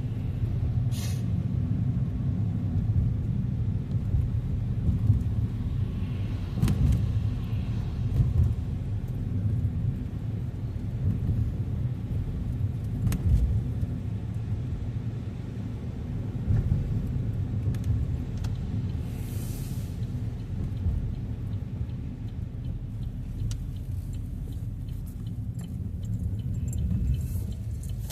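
Steady low rumble of a car on the road, heard from inside the cabin: engine and tyre noise, with a few brief knocks and a short hiss partway through.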